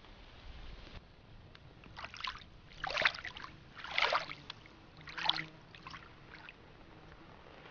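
A hand sloshing and splashing in shallow lake water: about four loud splashes roughly a second apart, then a few smaller ones.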